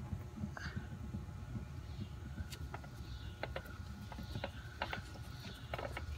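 Light irregular clicks and taps of a gloved hand turning a loosened spin-on oil filter off by hand, over a low steady rumble.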